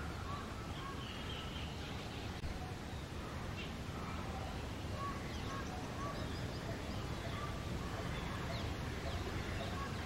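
Birds calling in the background: a short, faint call note repeats roughly every second through the second half, with thin high chirps from small birds, over a steady low rumble.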